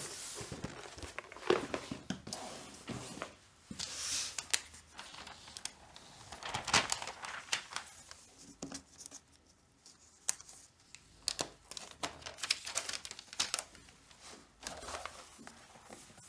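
Rustling and crinkling of a laptop's translucent protective paper wrap as it is peeled open and the laptop is lifted out, with a few light taps and clicks of handling against the packaging and desk.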